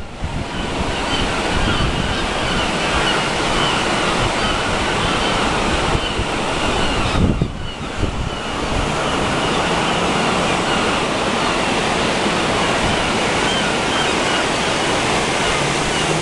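Steady wash of sea surf on a rocky shoreline, with wind rumbling on the microphone. The sound dips briefly about seven seconds in.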